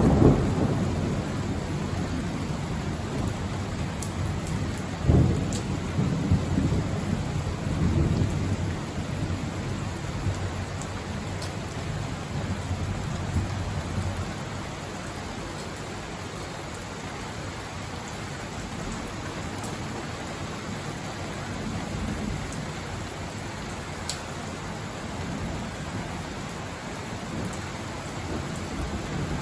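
Steady rain with thunder rumbling over it, the loudest rolls at the start and about five seconds in. The thunder dies away by about fourteen seconds in, leaving the rain alone.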